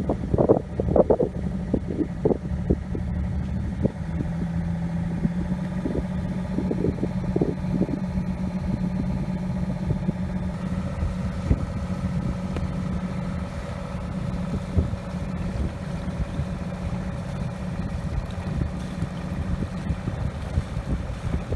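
An engine running steadily at an even pitch. Irregular knocks and rustles over it for the first several seconds.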